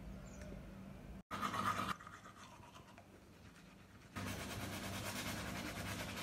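Teeth being brushed with a manual toothbrush: quick back-and-forth scrubbing of bristles on teeth. It comes in a short spell after a cut about a second in, then runs steadily from about four seconds in.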